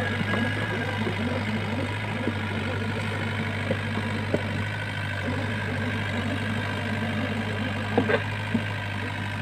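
Komatsu PC30 mini excavator's diesel engine running steadily, with a few sharp knocks, the loudest about eight seconds in.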